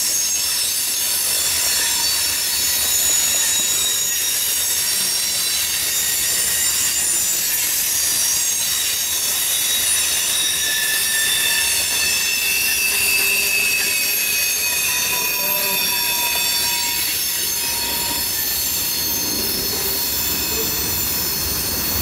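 Covered hopper cars of a freight train rolling past on curved track. Their wheels squeal on the rails in several high, wavering tones over the steady rumble of the wheels.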